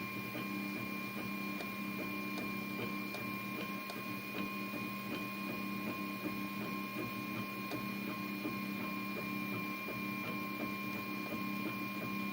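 Anet A8 3D printer running a print: a steady mechanical hum with several held whining tones and a fast, uneven ticking from the moving print head.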